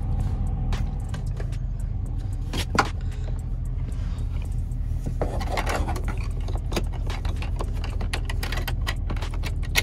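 BMW X3 engine idling with a steady low rumble, stuttering and skipping: the owner links this to a camshaft timing over-retarded bank one code. Scattered clicks and light rattling come from handling near the footwell, the sharpest about three seconds in.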